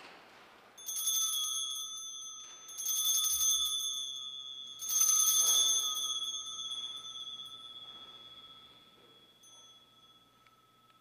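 Altar bells rung three times, about two seconds apart, the third ring the loudest, each leaving a clear ringing tone that fades slowly. The ringing marks the elevation of the consecrated host at Mass.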